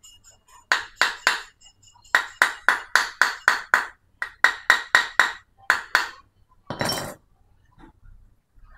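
Hammer blows on a steel punch driving the shaft seal in a Yamaha Jupiter MX King water pump housing: sharp ringing metal taps in runs, about four a second, then a brief rougher clatter near the end. The seal is being replaced because the water pump was leaking.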